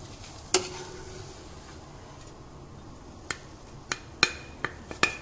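Wooden spatula knocking on a tawa and a ceramic plate as a cooked dosa is lifted off the pan and laid on the plate: one sharp knock with a short ring about half a second in, then a run of lighter clicks and taps near the end, one of them ringing briefly.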